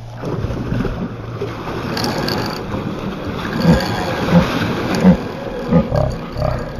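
A large hooked fish thrashing and splashing at the water surface, with a spinning reel's mechanism clicking as the fish fights the line. The clicks and splashes come in short repeated bursts, getting busier from about halfway through.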